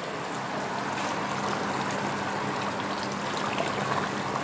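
A pot of chicken curry simmering on the stove: a steady watery hiss with faint scattered crackles, getting a little louder about a second in. A steady low hum runs underneath.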